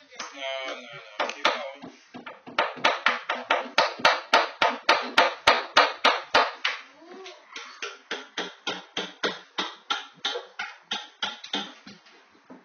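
Hammer blows struck over and over in a fast, even rhythm, about three to four a second, louder at first and softer in the later part.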